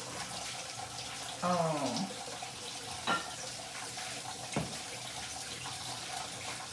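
Kitchen sink tap running, a steady rush of water. A short voice sound falls in pitch about a second and a half in, and two sharp clicks come near three and four and a half seconds.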